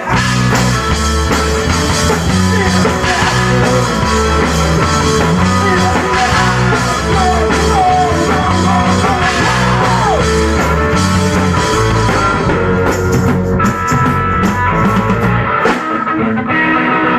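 Live rock band playing loud: a drum kit with cymbals keeping a steady beat under electric bass and electric guitar.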